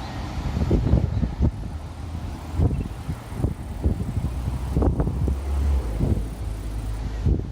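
Train passing close by on the line: a low rumble with irregular heavy thumps, typical of wheels crossing rail joints.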